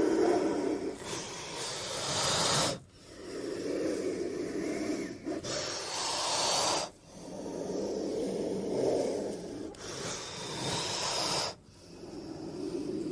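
Sound-designed velociraptor breathing and hissing: long unpitched breaths of about four seconds each, cut by short sharp breaks about three, seven and eleven and a half seconds in.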